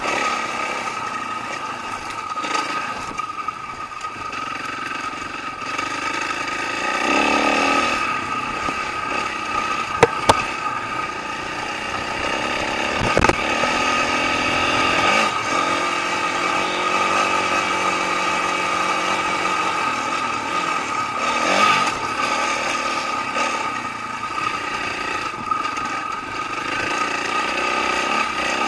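Dirt bike engine running while riding a trail, its pitch rising and falling with the throttle. Two or three short sharp knocks come through about ten seconds in and again a few seconds later.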